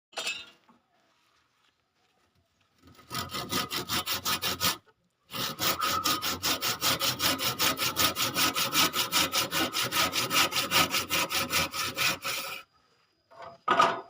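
Hand saw cutting through wood in quick, even back-and-forth strokes, about four to five a second: a short run, a brief pause, then a longer steady run. A sharp knock near the end.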